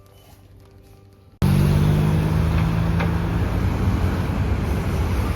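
Soft music, then a sudden cut about a second and a half in to loud, steady road traffic noise. A low hum runs under it and fades after a couple of seconds.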